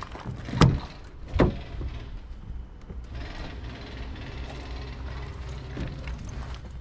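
Scania truck cab door being unlatched and opened: two sharp clunks less than a second apart as the handle is pulled and the door releases, then a steady low hum.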